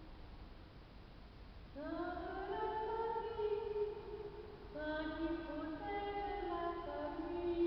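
A lone female soprano voice singing an improvised prayer in a reverberant stone church. After a short lull, a phrase swells in with a rising glide about two seconds in and is held, and a second phrase of stepped, held notes begins about five seconds in.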